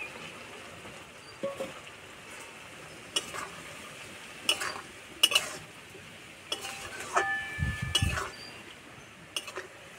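Metal spatula stirring and scraping through cabbage, potatoes and fried prawns in a metal wok, with scattered clanks against the pan over a faint sizzle. About seven seconds in, one metallic clank rings on briefly.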